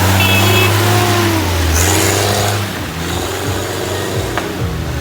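Off-road 4x4 vehicle engine revving hard under load, then easing off a little under three seconds in.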